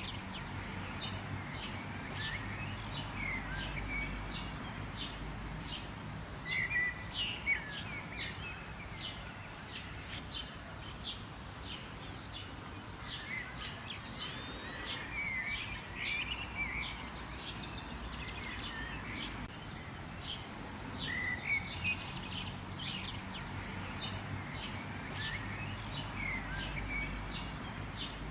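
Birds chirping and calling: many short, high chip notes several times a second, with warbling phrases that come in bunches every few seconds, over a faint low background rumble.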